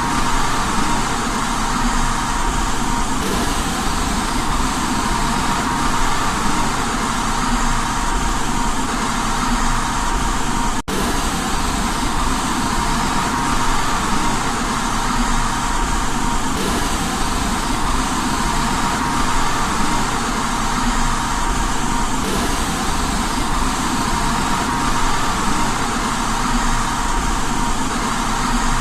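Steady white noise track for baby sleep: an even hiss, with a faint steady tone running through it. It cuts out for an instant about eleven seconds in.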